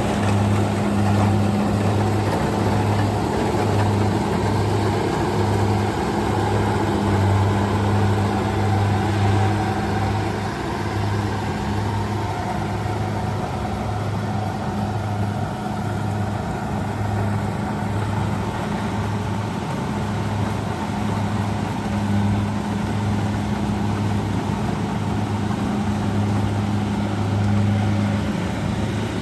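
Kubota DC-70G combine harvester's diesel engine running steadily: a constant low hum with a slight pulsing beat, over the broad noise of the working machine.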